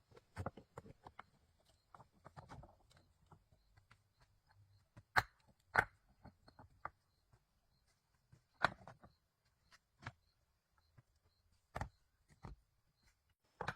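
Irregular knocks and clicks of hand work, with a few louder sharp knocks several seconds apart.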